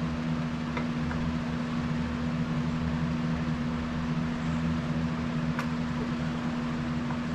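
Steady mechanical hum from a running motor, with a constant low tone, and two faint clicks, one about a second in and one near the end.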